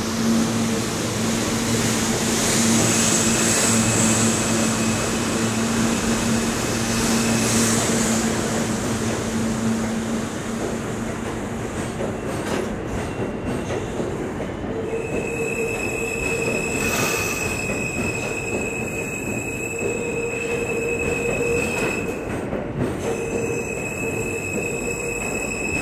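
R160 subway train moving past along the platform, a continuous rumble of wheels on rail with a steady high-pitched whine over it. A low hum fades out about ten seconds in, and a high whine carries through the second half.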